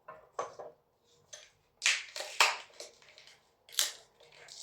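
Adhesive tape being peeled off a heavy-duty door closer in a series of short, irregular rips, the loudest about two seconds in.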